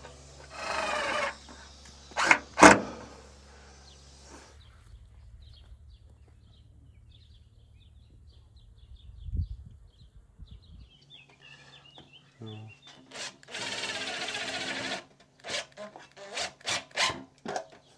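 Cordless drill-driver whirring in short runs as it drives screws, with a couple of sharp knocks about two seconds in. A long quieter stretch with faint high chirps follows, and the drill whirs again near the end.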